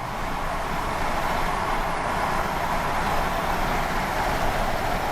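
Steady road and tyre noise heard from inside a moving vehicle, an even rushing hiss with no pauses or changes.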